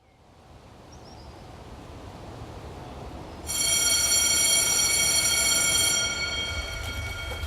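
A low rumbling noise swells up from silence, then a loud, shrill, sustained squealing tone cuts in abruptly and holds, with its highest overtones dropping away near the end.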